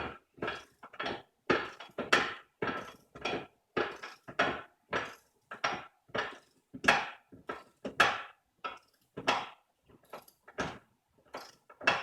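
A wrench torquing down the screw of a Mastercool manual A/C hose crimper held in a vise, crimping a fitting onto hose: a run of short, sharp metal clicks and clacks, irregular, about one or two a second.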